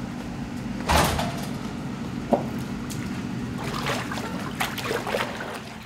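Water splashing and sloshing in a pool as someone steps down into it, over a steady low hum, with one sharp noise about a second in.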